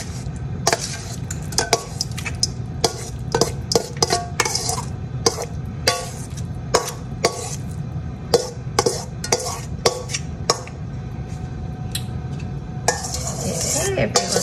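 A utensil scraping and clinking against a metal mixing bowl as a thick creamy chicken mixture is scraped out into a casserole dish, with many sharp clinks throughout and a denser stretch of scraping near the end.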